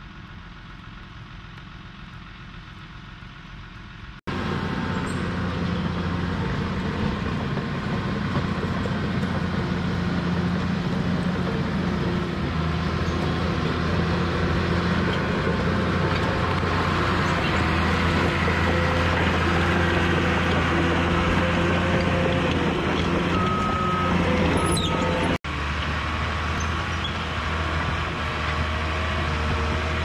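Caterpillar D4 crawler dozer's diesel engine running steadily under load as the blade pushes dirt and rock. It comes in loud about four seconds in, after a quieter hum, and two short high beeps sound near the end.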